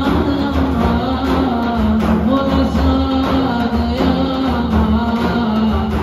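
An ensemble of large frame drums struck by hand, beating a steady rhythm, under a man singing a wavering melody.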